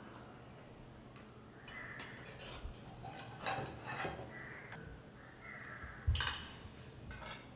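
Metal spatula scraping and tapping in a non-stick frying pan as a baked pola is slid out onto a plate: light clinks and scrapes, with one louder knock about six seconds in.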